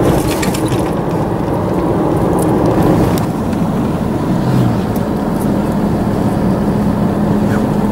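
Steady road noise inside a moving car's cabin: engine and tyres running on asphalt, with a few light clicks in the first second.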